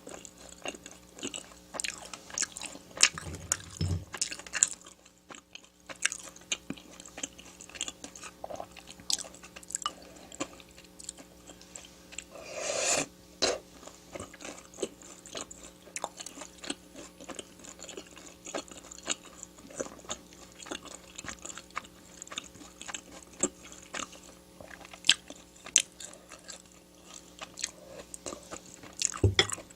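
Close-miked chewing and biting of food, with many short crisp clicks and crunches, and a longer noisy sound about halfway through.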